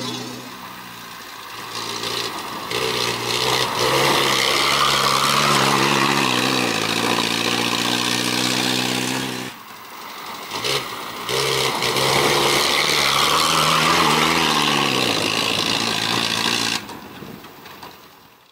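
Old Land Rover Series four-wheel drive's engine pulling and revving as it drives over a rough grass track, its pitch climbing and dropping as it accelerates and changes gear. The sound breaks off suddenly about halfway, resumes, then cuts and fades near the end.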